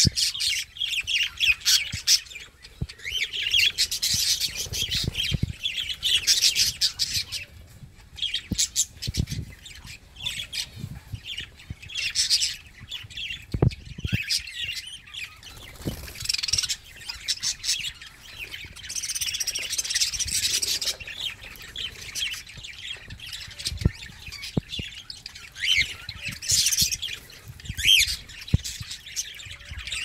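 Budgerigars chattering and warbling: a fast, rambling stream of high chirps and squawky notes that comes in stretches of a few seconds with short lulls, plus a few soft low knocks.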